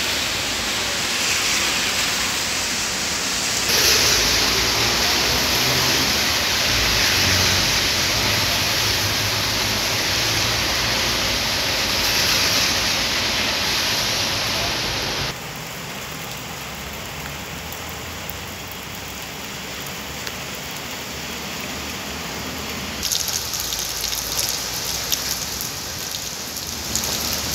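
Rain falling steadily, an even hiss that drops abruptly in level about halfway through. In the last few seconds, a crackle of drops splashing on wet paving close by.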